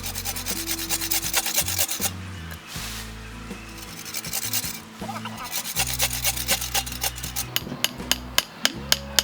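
A hand tool rasping on wood in quick back-and-forth strokes, in two runs with a short pause between, then a string of separate sharp knocks near the end.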